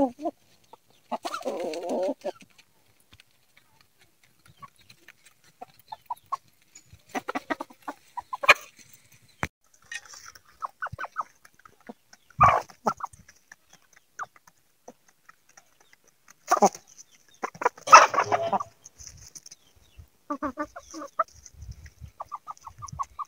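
Chickens clucking in scattered short bursts while they feed on grain, with a few sharp clicks among the calls.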